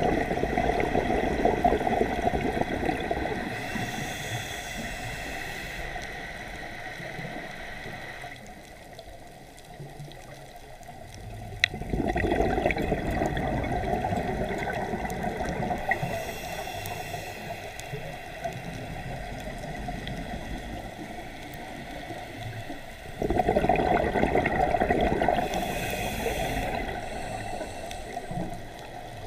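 Scuba diver's regulator breathing underwater: loud gurgling bursts of exhaled bubbles about every eleven seconds, with quieter stretches between them. A single sharp click comes just before the second burst.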